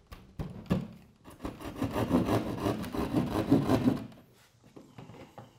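Hand sheetrock saw cutting through drywall in quick rasping back-and-forth strokes. The strokes grow louder about a second and a half in and stop about four seconds in.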